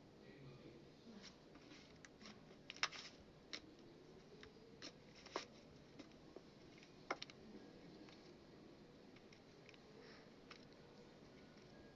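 Faint sticky clicks and pops of slime being squeezed and stretched by hand, scattered and irregular, the sharpest about three seconds in and again around five and seven seconds.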